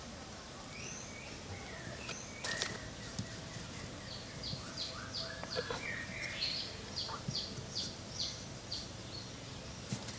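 Wild birds chirping in woodland: scattered high calls, and from about four and a half to nine seconds in a run of short, repeated downward-sliding notes at about four a second. One sharp click comes about two and a half seconds in.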